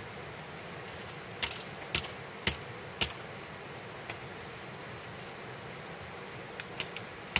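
A run of short, sharp clicks and knocks, about eight at uneven spacing, as objects are handled and set down.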